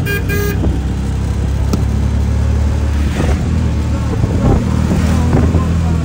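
Steady engine and road hum of a moving motor vehicle, heard from inside it. A horn gives two short toots right at the beginning.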